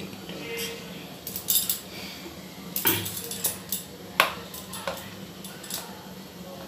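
A metal spoon clinking against steel bowls and pots as spices are scooped and added: a handful of separate clinks, the loudest about four seconds in.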